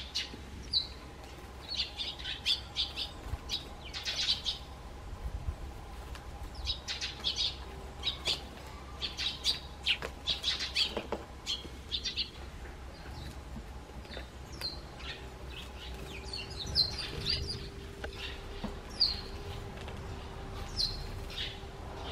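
Eurasian tree sparrows chirping in short high clusters, busiest in the first half and sparser later, over a faint steady hum.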